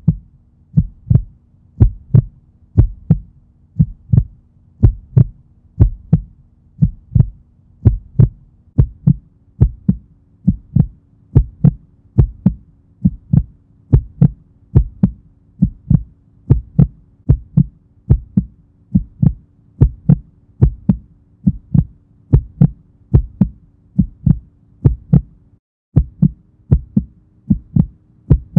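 Hip-hop instrumental backing music: deep, doubled kick-drum thuds about once a second, like a heartbeat, over held low notes that shift twice.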